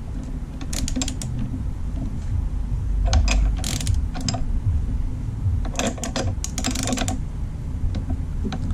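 Socket ratchet clicking in several short runs as a 19 mm nut on a motor mount's through-bolt is backed off slightly, over a steady low rumble.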